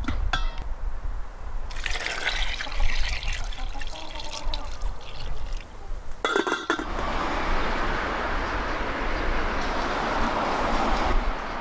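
Water poured from a steel bowl into a stainless steel pot over a whole duck: a steady splashing pour that pauses with a knock about six seconds in, then runs on evenly.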